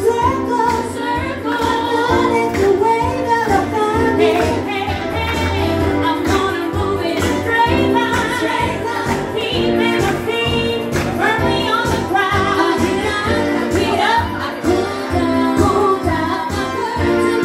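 Women singing an upbeat dance tune live into a microphone, amplified through a PA speaker over music with a steady beat.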